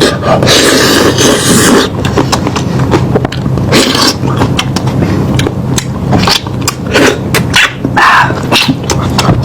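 Close-miked chewing of meat: loud, irregular wet smacks, clicks and gnawing noises.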